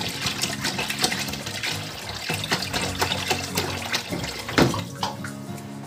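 Water pouring from a 1.5-litre bottle into a large aluminium pot of broth, a steady splashing stream into the liquid, with one louder knock about four and a half seconds in.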